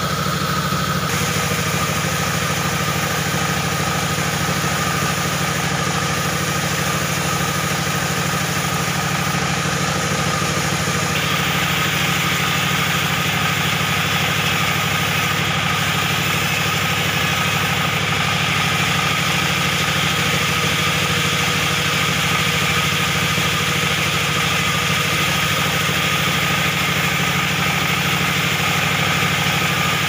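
Single-cylinder 24 hp dompeng diesel engine running steadily, belt-driving a sawmill band saw. From about eleven seconds in, the hiss of the blade cutting through a log is added to the engine's sound.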